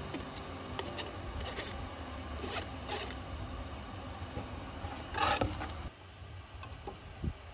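Metal spoon scraping fried patience dock out of a mesh strainer and across an aluminium pot, in several short scrapes over a steady hiss, with a longer, louder scrape about five seconds in. A low knock comes near the end.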